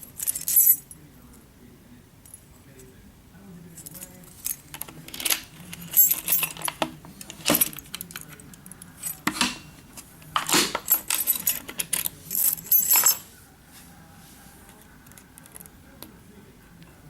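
Keys and small metal lock parts jangling and clinking in irregular bursts, densest between about five and thirteen seconds in.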